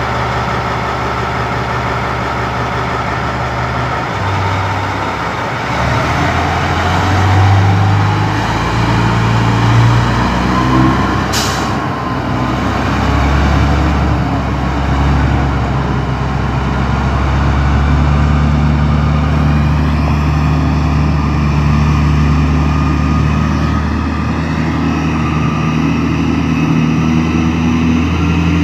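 Caterpillar 777E haul truck's diesel engine idling, then revving up as the truck pulls away on a test run after repair, with a whine that rises in pitch as it gathers speed. There is a brief, sharp hiss about eleven seconds in, and then the engine runs steadily under load as the truck drives off.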